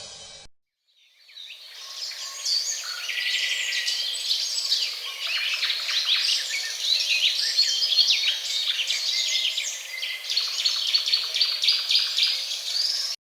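Many songbirds chirping and trilling together as a dense chorus. It fades in about a second in and cuts off abruptly near the end.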